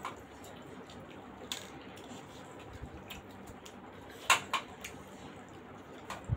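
Chewing and eating sounds from people eating steamed momos, with scattered small clicks. About four seconds in comes a sharp clink as a momo is dipped into a steel bowl of chutney.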